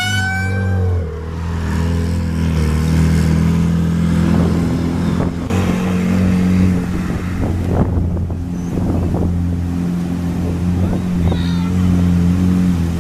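M8 Greyhound armoured car's six-cylinder petrol engine running steadily as the vehicle drives, a low hum with wind noise on the microphone.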